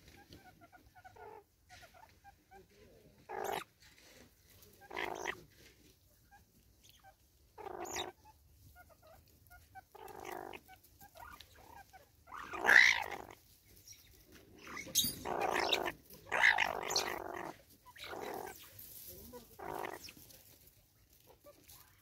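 Banded mongooses calling while they feed: short bursts of grunting, squeaky vocalisations at irregular intervals of one to a few seconds, the loudest a little past halfway.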